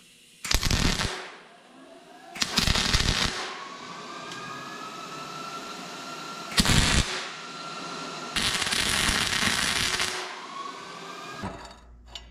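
MIG welder tack-welding steel plates: four bursts of crackling arc, the last one longest, at nearly two seconds.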